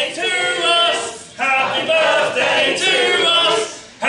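A group of voices singing together in unison, in sung phrases broken by a short pause about a second in and another near the end.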